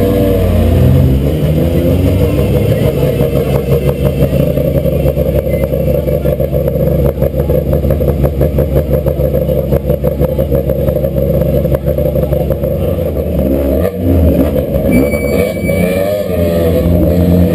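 Small rally car engines running close by as the cars creep past and stop: a rough, clattering idle through most of it, with the revs rising and falling briefly at the start and again near the end.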